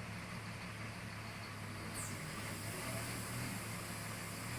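Heavy diesel engine of drilling-rig machinery running steadily at a low hum, with a high hiss joining about two seconds in.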